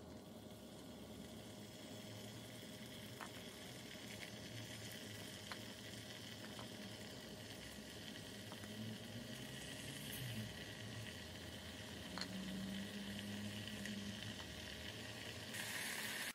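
Raw potato slices gently sizzling in olive oil in a frying pan as they are laid in one by one. The sizzle is faint and even, with a few small ticks scattered through it.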